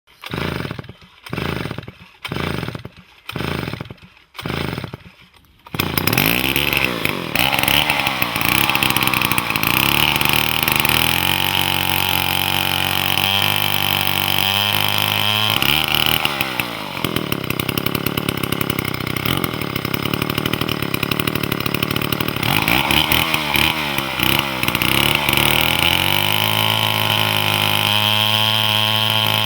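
Druzhba-4 two-stroke chainsaw engine: five short bursts about a second apart, then it catches about six seconds in and runs continuously, revving up and down several times.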